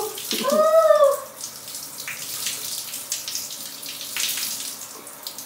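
Shower water running and spraying onto wet hair, a steady hiss. About half a second in, a short high cry rises and falls over it.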